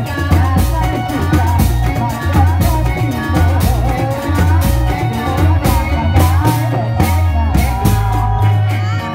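Reog Indramayu procession music: singing over drums and a heavy, repeating bass beat, loud and continuous.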